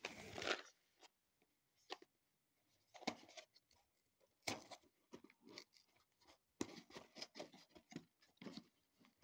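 Cardboard box of in-shell pistachios being handled and its lid tab worked open with the fingers: faint scattered scrapes and clicks of cardboard, coming thicker in the last few seconds.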